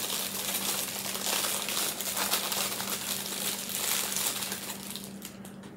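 Town House crackers being crushed by hand and the plastic cracker sleeve crinkling: a continuous crunching and crackling that stops shortly before the end.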